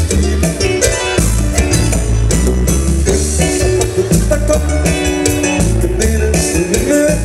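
Live band music played loud through a PA: an instrumental passage with electric guitar over bass and drum kit in a steady Latin dance rhythm.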